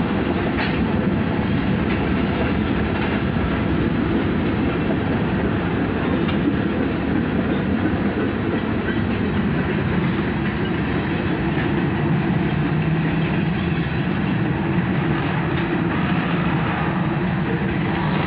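Freight train rolling past, its cars, tank cars among them, rumbling steadily on the rails.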